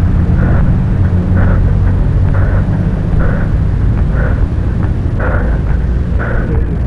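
Steady low rumble of wind and handling noise on a camera carried by someone walking, with a soft knock or scuff about once a second in time with the walk.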